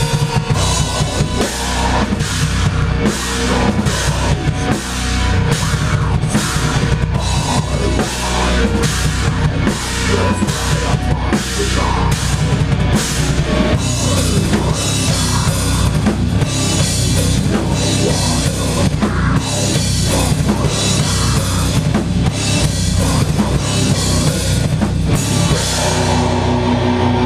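Loud rock band playing, led by a drum kit with cymbal crashes about twice a second over a heavy low end. Near the end the band gives way to different music with held notes.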